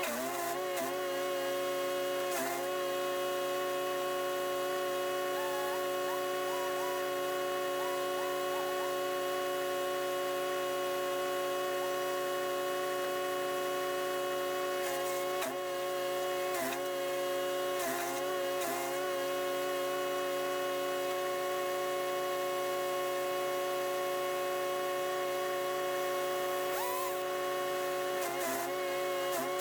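Chipease D1500E wood chipper with its 420cc four-stroke engine running steadily at speed. A few times its pitch dips briefly with a short crackle, as when a branch is fed in and chipped.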